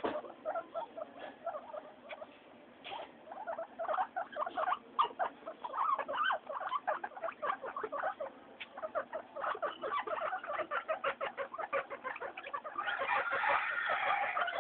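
Guinea pigs making quick short calls, several a second, sparse at first and growing busier and louder near the end.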